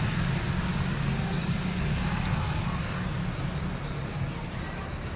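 Motor vehicle engine running steadily at idle, a continuous low hum under a wash of road noise.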